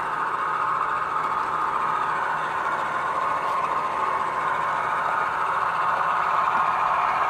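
G-scale model diesel locomotive running past on garden-railway track: a steady mechanical running hum with no breaks.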